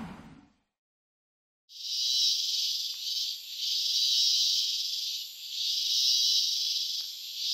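Insects chirring, a high hiss that swells and fades about every one and a half to two seconds, starting after a second or so of silence.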